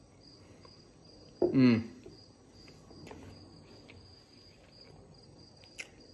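Crickets chirping steadily in an even, rapid pulse. About a second and a half in comes a short voiced 'mm' from the man chewing a milk-dunked cookie, and near the end a single sharp click.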